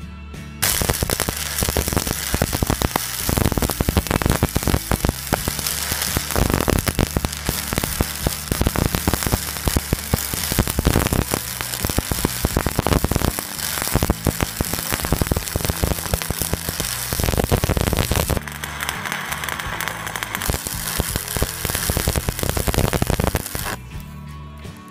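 Stick (SMAW) arc welding with a 6013 mild-steel electrode: the arc crackles and sizzles steadily as the bead is woven along the joint, striking up sharply about half a second in and cutting off sharply near the end, a little softer over the last few seconds. Background music with guitar lies underneath.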